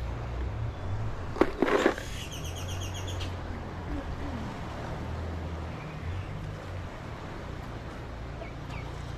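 A bird's rapid trill of repeated chirps, about nine a second for about a second, coming just after a short cluster of loud knocks, over a steady low rumble.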